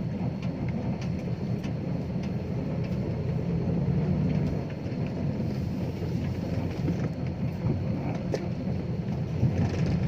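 Six-wheel dump truck's diesel engine running as the truck drives, a steady low rumble with light rattles.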